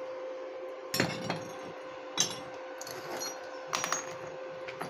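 Sharp metallic clinks of steel angle-bar pieces knocking together as they are handled, five or six separate clinks a second or so apart.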